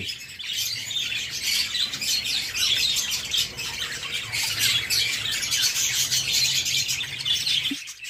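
Budgerigars chirping and chattering in a dense, continuous stream of short calls, over a faint steady low hum.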